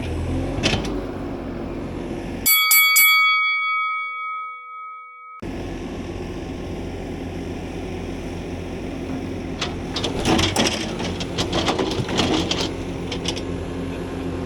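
Skid steer engine running steadily. About two and a half seconds in it drops out abruptly and a bell-like chime rings and fades over about three seconds. The engine then returns with a run of clanks and rattles from about ten to thirteen seconds in.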